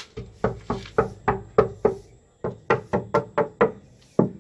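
A rapid run of sharp knocks on the wooden bass box, about three to four a second, with a brief pause midway.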